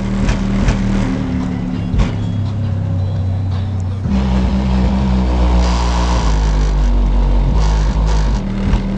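Deep, loud bass music played through Lightning Audio 12-inch car subwoofers, heard from outside the car at its rear. The low bass notes hold for a few seconds at a time and shift about four seconds in.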